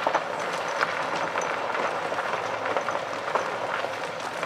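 Golf cart driving along: a steady rumble of its tyres on the road, with many small rattles and clicks.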